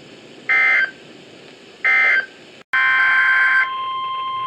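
Emergency Alert System SAME data tones: two short, identical bursts of shrill digital chirping about a second and a half apart, the end-of-message code closing one warning. About 2.7 s in, after a split-second gap, a new header begins with a longer burst of the same data tones over a steady high tone, and the next burst starts right at the end.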